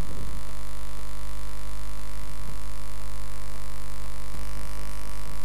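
Steady electrical mains hum running under the recording, a constant buzzy drone with no other sound.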